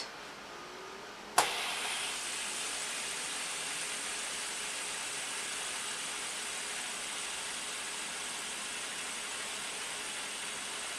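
Fidget spinner flicked with a sharp click about a second and a half in, then spinning with a steady whirr.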